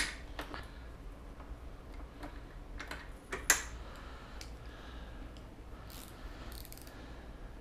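Scattered clicks and knocks from tools and metal parts being handled while a mobility scooter is torn down. The loudest knock comes about three and a half seconds in, and a few short hisses follow near the end.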